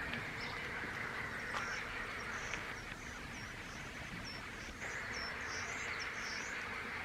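Steady outdoor hiss with faint, short, high bird chirps coming and going through the middle.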